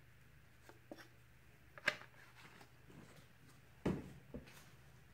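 Faint, scattered clicks and knocks of small objects being handled on a countertop, about five in all. The loudest are a sharp click about two seconds in and a duller knock about four seconds in.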